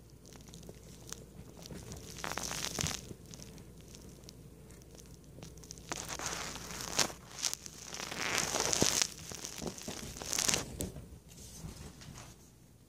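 Kitten playing with a string and a plush toy on carpet: irregular bursts of scratchy rustling from its claws and the toy, four or so over the stretch, louder in the second half.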